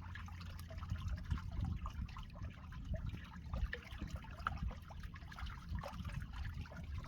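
Seawater lapping and trickling, with small irregular splashes and drips.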